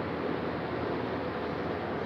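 TCL window-type air conditioner running on its fan motor alone: a steady rush of air from the spinning fan blade. The compressor is not running; it fails to start.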